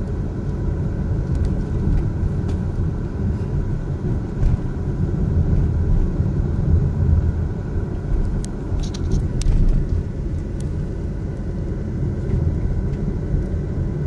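Steady low rumble of a car's engine and tyres, heard from inside the cabin while driving slowly along a street.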